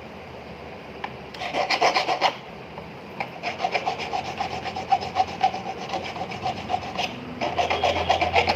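Rapid back-and-forth rasping strokes of a hand tool on a silver ring being repaired, with a faint metallic ring in the strokes. The strokes come in three runs: one starting about a second and a half in, a longer one from about three seconds in, and another near the end.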